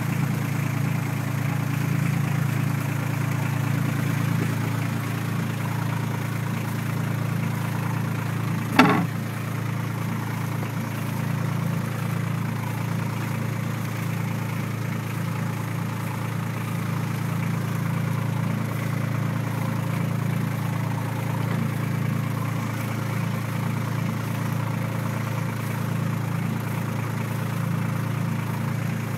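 Boat engine running steadily under way, a constant low hum. About nine seconds in, a single sharp knock stands out above it.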